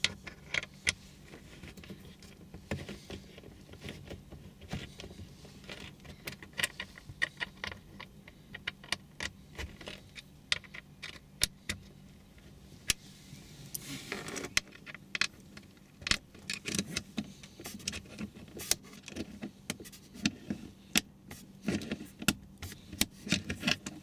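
Small sharp clicks and ticks, irregular, a few a second, from a small metal screw being turned by hand into the plastic dashboard panel, metal on plastic. There is a brief scraping rustle about midway.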